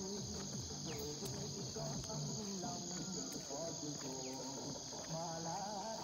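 Crickets chirring in a steady high-pitched chorus, over soft instrumental background music with sustained, shifting notes.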